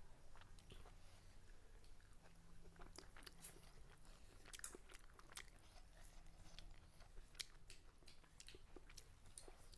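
Faint close-up eating sounds: a person chewing a mouthful of hand-eaten rice and pork curry with fermented bamboo shoot, with scattered small wet clicks and crunches.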